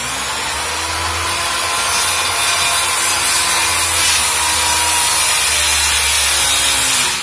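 Handheld electric circular saw cutting through timber, its motor whining steadily under load as the blade runs along the cut line; it stops suddenly at the very end.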